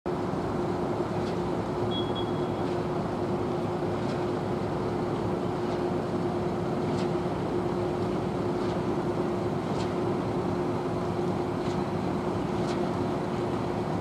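Steady diesel drone of a line of idling concrete mixer trucks, with one constant humming tone over the engine noise.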